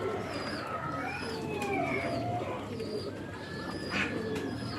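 A flock of domestic waterfowl calling at once, many short overlapping rising and falling calls.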